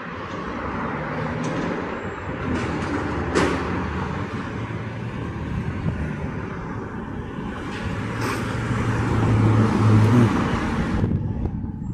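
Road traffic with a heavy vehicle's engine running, growing louder toward the end and then dropping off sharply just before the end, with a short sharp sound about three and a half seconds in.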